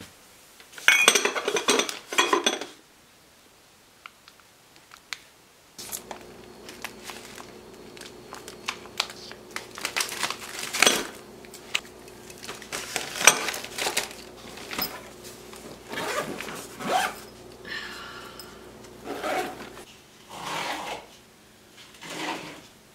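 Small jars, bottles and paper packets clinking, knocking and rustling as they are handled and packed into a soft bag. A low steady hum comes in about six seconds in.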